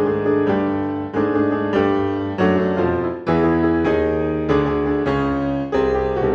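Background piano music: a melody of struck notes, each fading after it sounds, about one to two a second.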